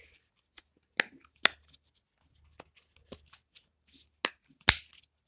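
Small objects being handled at close range: a scatter of light taps and sharp clicks, four of them loud, two near the start and two near the end.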